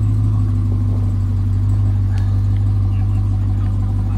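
Pickup truck engine running steadily at a low idle as the truck crawls slowly over rocks, with a few faint ticks about two seconds in.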